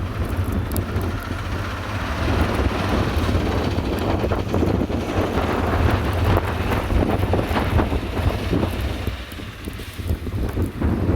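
Strong, gusty blizzard wind buffeting the microphone: a deep rumble under a rushing hiss, easing briefly near the end.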